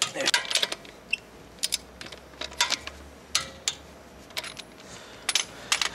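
Click-type torque wrench (Emerson EM-29) with its socket on car wheel lug nuts: irregular metallic clicks and clinks as the nuts are tightened in turn to the set torque, a few close together near the start, then single clicks spaced out.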